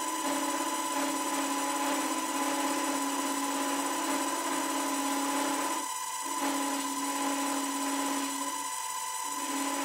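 A DIY micro lathe's spindle, driven by a CNC rotational axis, runs steadily with a whine while a cutter tool turns a brass rod. The lower tone of the whine drops out briefly twice, about six seconds in and again about nine seconds in.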